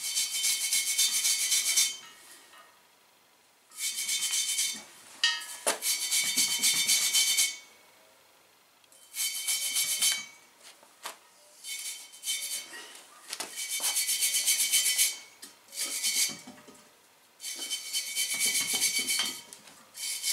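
Hand tool scraping metal at the steel propane bottle's valve fitting: repeated rasping bursts, each one to three seconds long, with short pauses between them. A metallic ringing tone runs through each burst.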